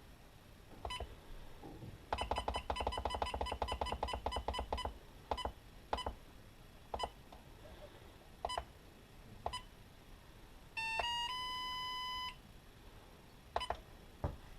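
SkyRC Quattro Q200 battery charger beeping as its buttons are pressed. There is a single beep, then a fast run of beeps for about three seconds as a setting scrolls, then several more single beeps. Near the end comes a short chime of a few quick notes ending in a tone held for about a second and a half, as a charge channel starts.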